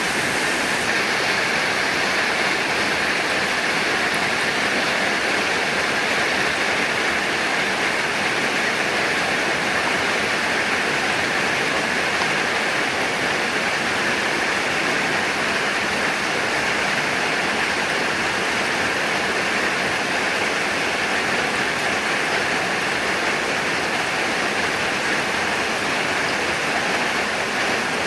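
Heavy rain pouring steadily, an even, unbroken wash of sound.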